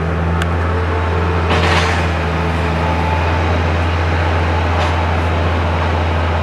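A heavy machine's engine running steadily on a demolition site, with a brief rush of noise about a second and a half in.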